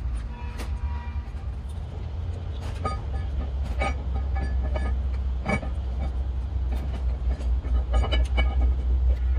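Metal parts or tools clanking and briefly ringing, several times, over a steady low rumble of machinery.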